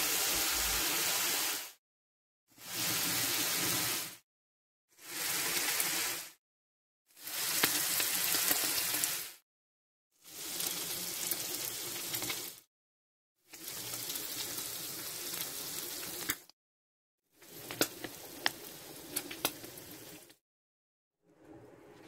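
Food sizzling in oil in a frying pan, heard in a series of short bursts split by brief silences. Sharp crackles of spattering oil come through in the later bursts.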